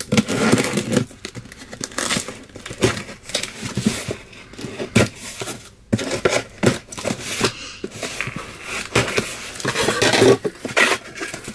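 A cardboard box and its paper packing being cut and torn open by hand: irregular crinkling, rustling and tearing noises.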